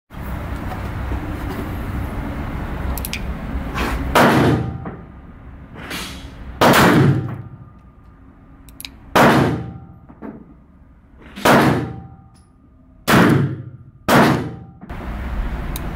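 Six revolver shots from a Spanish Model 1892 regulation revolver firing 32-20 Winchester cartridges. The shots come a couple of seconds apart, the last two close together, and each is followed by a brief echo.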